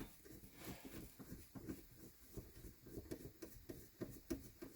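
Faint, irregular clicks and soft knocks of a Dolomiti gear shifter in a Lotus Elise/Exige being worked by hand, testing its 1st/2nd gear engagement.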